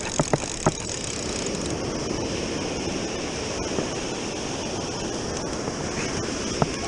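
Surf washing up on the beach, with wind on the microphone. Three sharp clicks come in the first second and another near the end.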